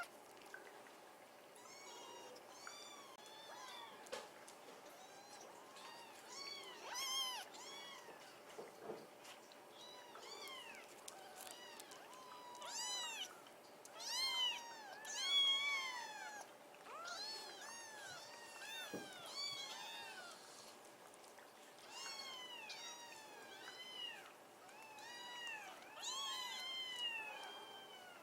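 Litter of young kittens meowing over and over: short high-pitched calls that rise and fall, often overlapping, with louder clusters now and then.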